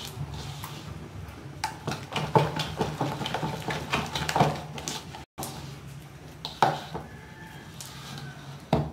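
A hand mixing thick bajji batter in a bowl: wet batter sounds with scattered sharp knocks of the hand against the bowl, cut off briefly just past halfway.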